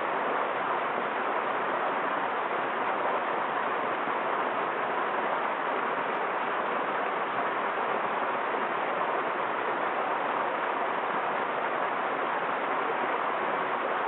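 Small waterfall splashing into a pool, a steady, even rush of falling water.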